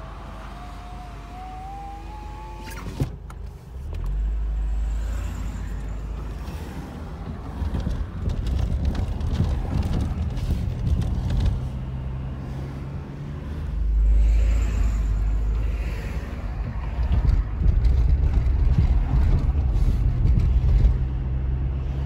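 Car pulling away and driving, engine and tyre noise heard inside the cabin, swelling about four seconds in and again about fourteen seconds in as it speeds up. At the start a small electric motor whines, rising in pitch for about three seconds and stopping with a click.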